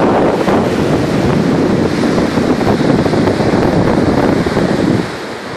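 Wind buffeting the microphone over the steady wash of ocean surf on a sandy beach; the wind rumble drops away sharply near the end, leaving the surf hiss.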